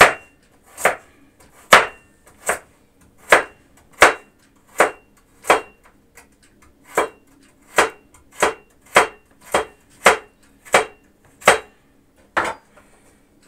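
Kitchen knife slicing a carrot into rounds on a wooden cutting board: a sharp knock each time the blade goes through and hits the board, evenly spaced at a little over one a second, with a short pause about six seconds in and stopping near the end.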